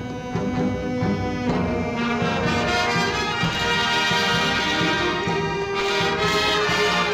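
Band or orchestral music with brass prominent, playing held chords that change every second or two, from an old LP recording.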